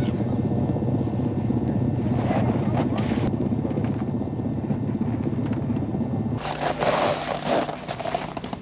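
Steady low rumble of an aircraft engine running, which drops away about six seconds in as a loud rushing noise takes over.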